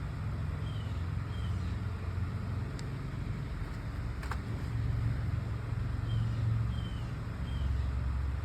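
A steady low motor rumble, with a few short high chirps and a couple of faint clicks.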